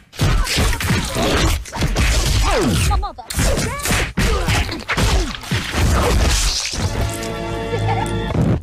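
Foley fight sound effects made with fresh vegetables: a rapid run of hits, whacks and crunches. Music with drums comes in about seven seconds in.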